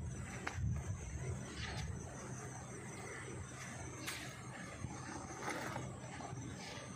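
Crinkling and rustling of a plastic bag being pulled out of a backpack, in short scattered bursts with the sharpest crackle about four seconds in, over a low steady rumble.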